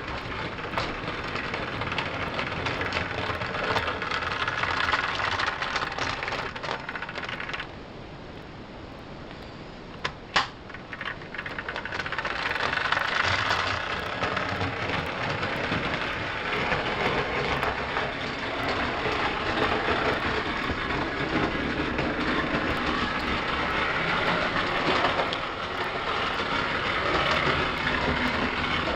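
1930s Walker Fenn clockwork O gauge tinplate locomotive running on tinplate track, its wheels clattering over the rail joints with many small clicks. The clatter drops away for a couple of seconds about eight seconds in. A single sharp click follows around ten seconds in, then the running noise comes back.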